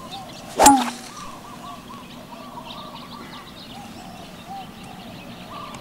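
A 3-wood strikes a golf ball with one sharp crack about half a second in. Birds keep up a series of short, faint calls in the background after it.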